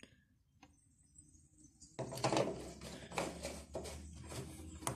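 Handling noise from washing-machine parts: a couple of faint clicks, then from about two seconds in a continuous run of irregular knocking and scraping.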